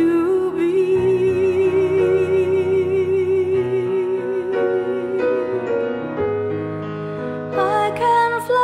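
Slow background music: a long held note with vibrato over sustained chords, then shifting chords, with a moving melody coming back near the end.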